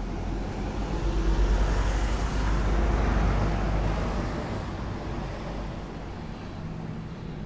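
A heavy road vehicle passes close by. A deep engine rumble and road noise swell to their loudest a second or two in and then fade away, and a thin high whine rises and holds through the middle of the pass.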